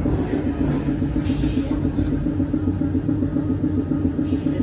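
Streetcar running with a steady, rapidly pulsing hum over a low rumble, heard from aboard the car. Two short hisses cut in, about a second in and again near the end.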